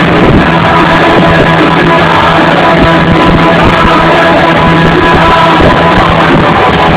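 Punk rock band playing live, loud and distorted with electric guitar, bass and drums, with some singing or shouting, recorded on a mobile phone from the audience.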